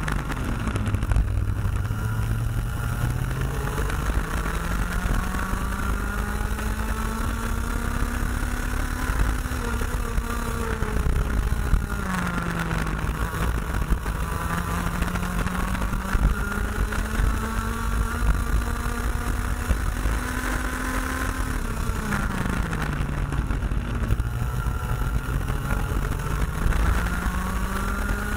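IAME X30 125cc two-stroke kart engine at racing speed, heard onboard. Its pitch climbs slowly down each straight and drops sharply three times as the kart slows for corners.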